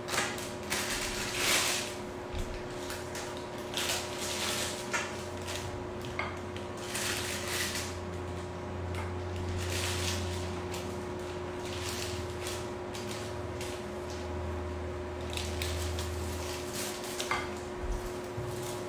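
Frosting being loaded into a plastic piping bag: a utensil scrapes and clinks against a glass mixing bowl, and the bag rustles, in irregular short strokes over a steady hum.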